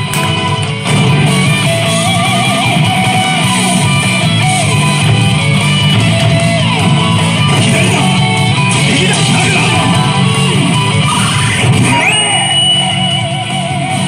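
Rock music with electric guitar playing from a Hana no Keiji 3 slot machine's speakers. Warbling held tones and sweeping pitch glides run over it, and a bright upward sweep into a high held tone comes near the end.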